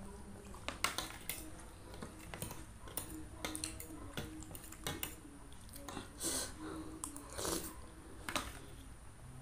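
Close-miked eating: a spoon and fork clicking and scraping against a ceramic plate, with chewing of noodles and egg meatball in spicy soup and a few short hissy mouth sounds.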